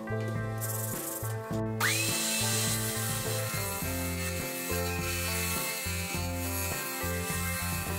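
Bench disc sander grinding the edge of an epoxy-resin seat, a steady rough rubbing hiss that starts about two seconds in. Background music plays throughout.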